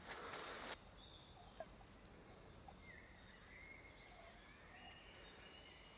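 Near silence, with faint distant bird calls; a brief rustle of noise in the first moment.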